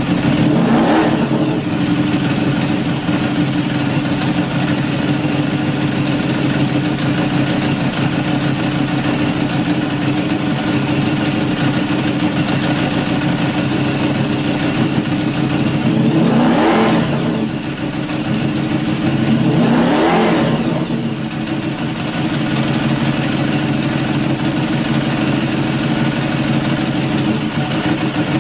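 Ducati Desmosedici RR's V4 engine idling steadily just after being started, with three short throttle blips that rise and fall in pitch: one about a second in and two close together a little past the middle.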